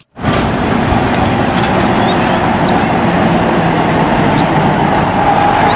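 Running noise of a large coach bus on the move: a steady engine and road rumble that starts abruptly and cuts off abruptly near the end.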